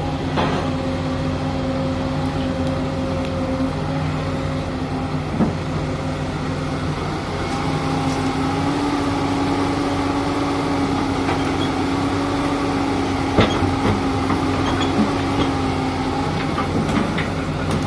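Hyundai 220LC crawler excavator's diesel engine and hydraulics running steadily under load while it digs and swings earth. The whine rises slightly about eight seconds in, and a few sharp clanks come through.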